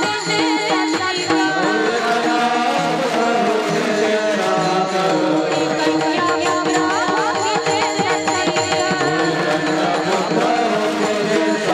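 Devotional kirtan-bhajan music: a melody over a steady tabla rhythm, with held and ornamented melodic lines.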